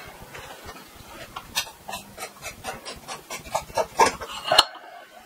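Plastic ceiling rose cover of a pendant light being turned on its thread by hand, giving a run of irregular rasping clicks that stops abruptly near the end.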